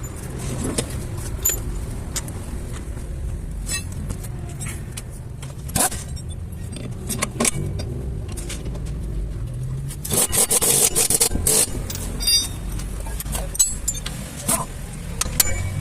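Scattered metallic clinks and scrapes of tools and parts being handled, over a steady low rumble, with a louder scraping stretch about ten seconds in.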